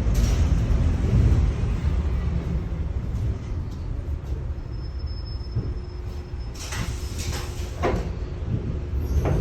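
LVS-86K tram's running rumble easing off, with a faint thin whine partway through. Then the tram doors work with a series of clatters and clunks, with one more clunk near the end.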